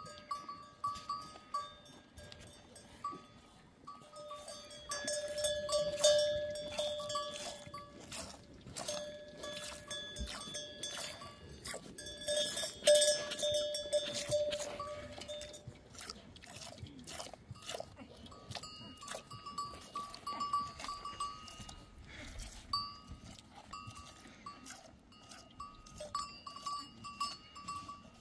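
Hand-milking a goat into a metal bowl amid a herd of goats: repeated metallic ringing and clinking with runs of sharp squirts and clicks, loudest around six and thirteen seconds in.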